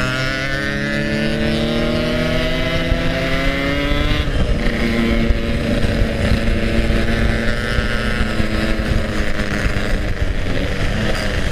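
Yamaha RX-King two-stroke single-cylinder motorcycle engine under way: the revs rise for about four seconds, then drop at a gear change to a steadier, lower pitch as the bike cruises on.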